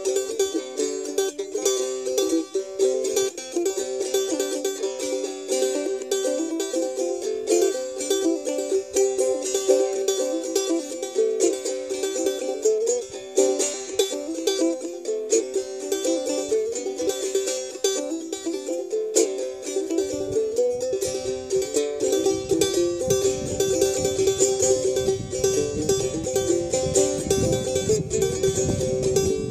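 Clawhammer banjo played solo on a Backyard suitcase banjo: an old-time fiddle tune in quick, even picked notes. About two-thirds of the way through, a low rumble joins underneath the playing.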